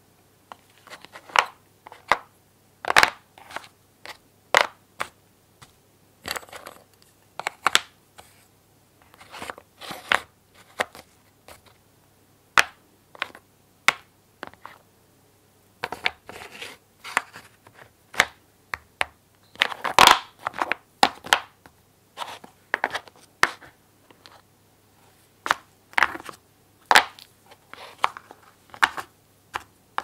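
Painted wooden puzzle pieces clacking and knocking as they are picked up and set into the slots of a wooden tray board: irregular sharp wooden knocks, some single and some in quick clusters.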